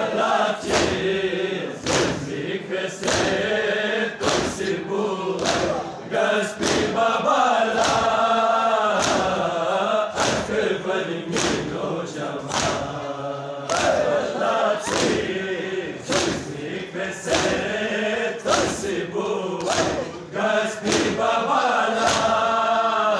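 A crowd of men chanting a Balti noha (Muharram lament) in chorus, over steady chest-beating (matam), a sharp slap a little more than once a second.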